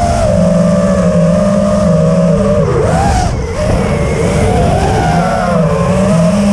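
Five-inch FPV racing quadcopter's motors (2207 1800kv, Nazgul 5043 props) whining loudly over wind rush, heard from the onboard camera. The pitch swings with throttle, dropping and then climbing sharply about three seconds in as the quad dives down to skim the road.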